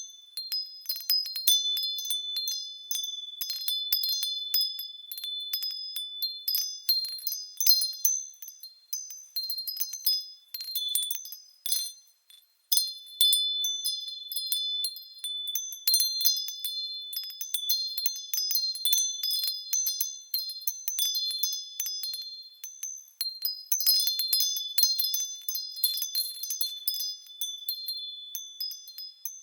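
Japanese fūrin wind chimes ringing in the breeze, struck irregularly and sounding a cluster of high, clear tones that overlap and die away. The ringing thins out and almost stops for a moment about twelve seconds in, then picks up again.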